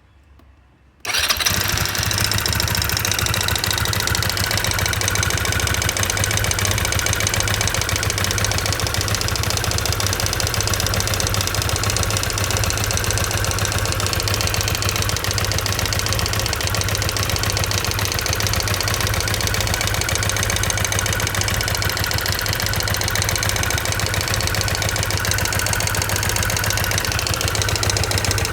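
Opel Tigra engine running steadily with a strong low hum, cutting in suddenly about a second in. It is recorded to show an abnormal engine noise.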